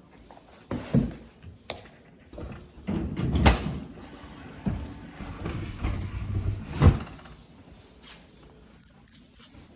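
A GE dishwasher being handled and opened up: several hard clunks, the loudest about a second in, halfway and near seven seconds, with a low sliding rumble in between.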